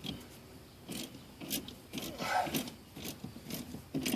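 Metal clicks and scrapes of a wrench tightening the mounting nut on a new rear shock absorber, coming irregularly with a busier stretch about two and a half seconds in.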